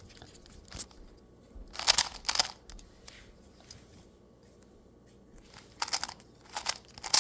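A 2x2 Rubik's cube being twisted by hand: short runs of plastic clicking and clacking as its layers turn, a brief one about a second in, a louder one around two seconds, and a few more near the end.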